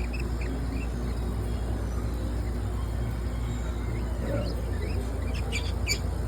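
Lovebirds giving short, high chirps: a few just after the start and a quick cluster near the end, over a steady low hum.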